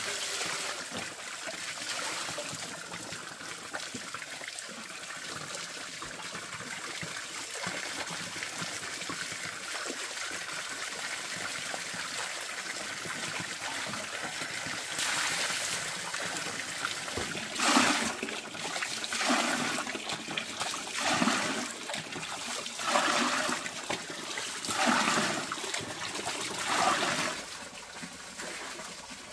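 Water running and trickling steadily; from about halfway, a series of about six short splashes, one every two seconds or so.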